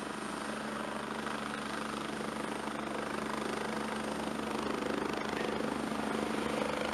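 Helicopter running on the ground with its rotors turning: a steady engine and rotor noise with a constant low hum, growing slightly louder.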